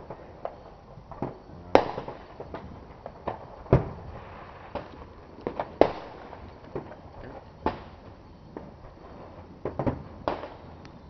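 Fireworks going off: sharp bangs, the loudest about every two seconds, with lighter pops in between.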